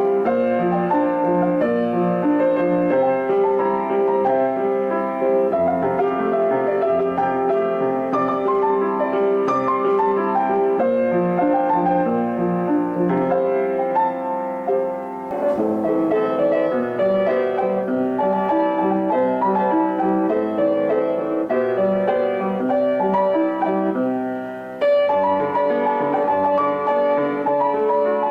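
Piano music: a slow melody over held chords, dipping briefly in loudness about halfway through and again near the end.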